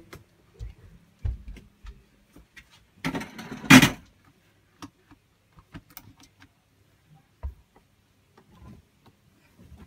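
Irregular soft knocks and clicks, with one louder rustling burst lasting about a second, three seconds in.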